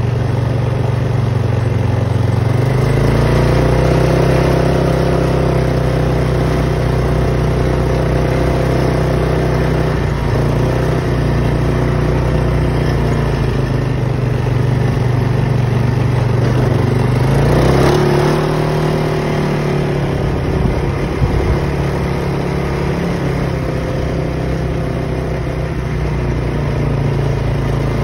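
Polaris Sportsman 570 ATV's single-cylinder engine running under way. Its pitch rises about three seconds in as the machine speeds up, eases off briefly twice, then holds steady.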